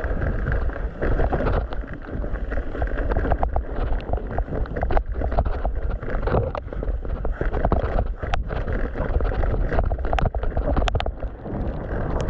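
Mountain bike riding a wet dirt trail: steady tyre and wind rumble, broken by frequent sharp knocks and rattles from the bike over the rough ground.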